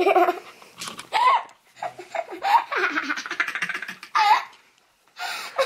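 A young boy laughing hard in bursts: high squeals and a run of quick laugh pulses, with a brief pause shortly before the end.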